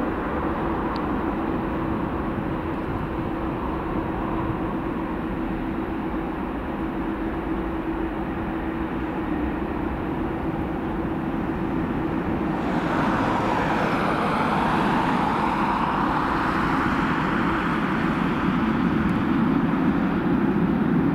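Airbus A300-605R's twin jet engines at high power as the airliner rolls away down the runway on its takeoff run: a steady jet roar with a held hum. About twelve seconds in, a harsher hiss joins and the sound grows a little louder.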